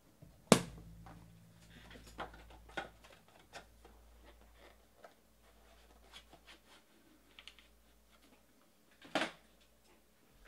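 Trading cards and a card box being handled on a table: a sharp knock about half a second in, then scattered light clicks and taps, and a louder clatter of clicks near the end.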